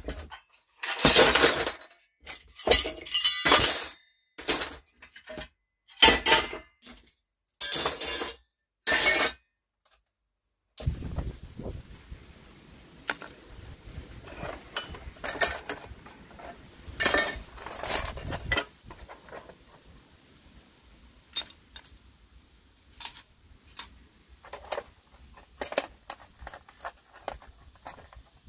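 Aluminium scrap pieces clattering and clanking as they are handled and dropped together: a run of loud metallic crashes over the first ten seconds, then fainter, scattered clinks.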